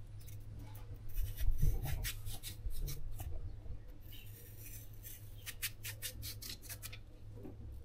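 A knife cutting raw winter squash on a cutting board: thumps and scraping about a second in, then a quick run of sharp clicks of the blade against the board around five to seven seconds in.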